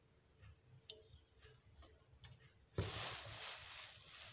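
Light ticks and taps of a stainless steel vacuum flask and its packaging being handled. About three seconds in comes a sudden rustle of plastic wrapping that fades out over a second or so.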